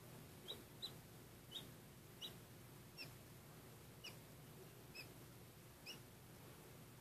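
Faint, high peeps of an Ameraucana chick hatching from its egg: about eight short peeps, under a second apart, some rising in pitch.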